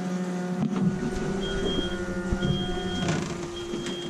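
Twin outboard motors idling with a steady hum. A thin high tone sounds briefly a few times over it.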